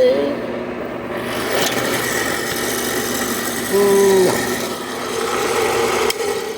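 A power tool working wood, with a continuous rasping noise and a motor whine under it. A little before the middle the whine rises and holds one steady pitch for about half a second.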